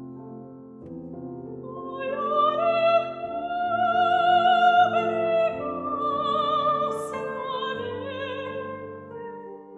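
Classical-style singing with wide vibrato over sustained piano chords. The voice enters about two seconds in, swells on long held notes and then eases off near the end.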